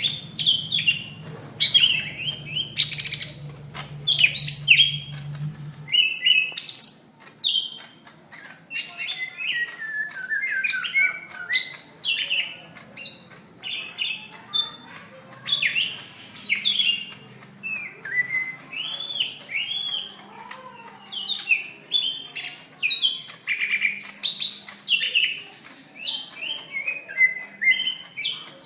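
Green leafbird (cucak ijo) singing its aggressive 'fighting' (tarung) song: a fast, unbroken run of varied high chirps, whistles and slurred sliding notes.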